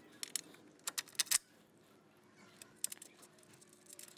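Light, scattered metallic clicks and clinks of bolts and mounting hardware knocking against the steering rack and subframe as they are fitted by hand. A quick cluster comes in the first second and a half, then a few fainter ones.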